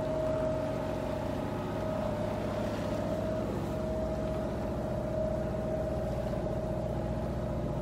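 Sailboat's inboard auxiliary engine running steadily under way, a low drone with a constant whine above it.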